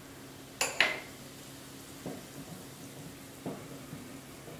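Hot gingelly oil sizzling and foaming in a small aluminium tempering pan over a gas flame, just after asafoetida has gone in with the mustard seeds. A sharp metallic clink on the pan comes about a second in, followed by two softer knocks later.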